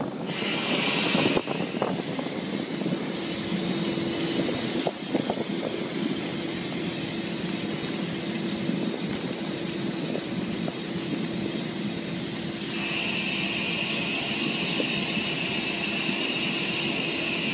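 A fishing vessel's engine and deck machinery running steadily, a constant hum with a higher whine that comes in over the last few seconds.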